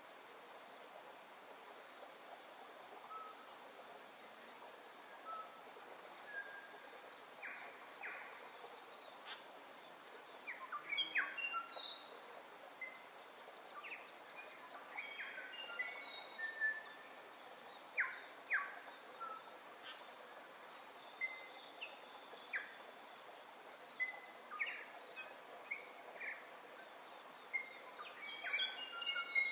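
Birdsong: many short chirps, whistles and quick falling notes from several birds, coming more often from about a third of the way in, over a faint steady hiss.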